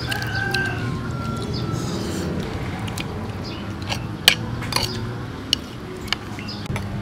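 A metal spoon clinking and scraping against a ceramic plate as it scoops up food: a few sharp clinks between about four and six seconds in, the loudest just after four seconds, over a steady low background hum.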